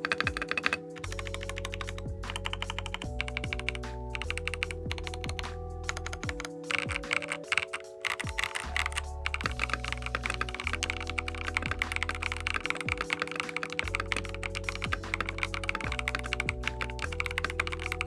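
Rapid, continuous typing on an Epomaker TH80-X mechanical keyboard with Epomaker Flamingo switches, a dense run of key clacks. Background music with slow sustained chords and bass plays under it.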